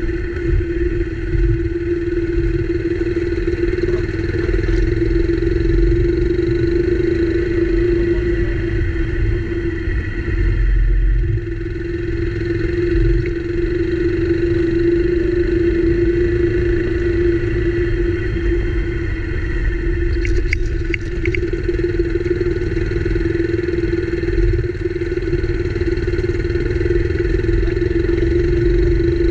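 Motorcycle engine running steadily at low road speed, with uneven low rumble from wind and the rough dirt road. Engine pitch eases briefly about a third of the way in. A few light ticks come past the middle.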